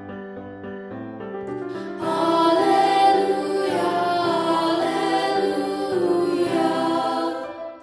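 Children's choir of sixth-grade voices singing an Alleluia, mixed together from separate home recordings. A quieter passage gives way to the full choir about two seconds in, and the singing dies away just before the end.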